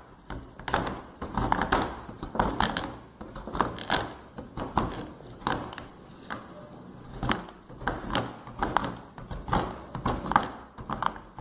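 Large kitchen knife chopping a bar of chocolate on a plastic cutting board: the blade rocks and strikes the board in quick clusters of knocks about once a second, with the crunch of the chocolate breaking.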